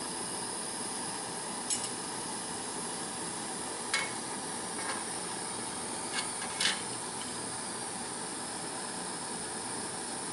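Steady rushing hiss of a flame heating metal in a spoon to melt it, with a few light metal clicks and taps.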